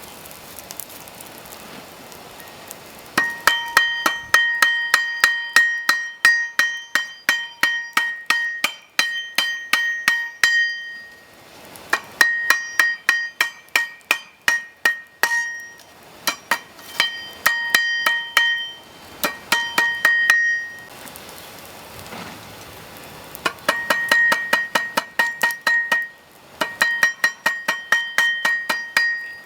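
Hammer blows forging a grass-whip steel rod on a railroad tie plate used as an anvil, in quick runs of about three strikes a second with short pauses between them. Each blow rings with a bright metallic tone.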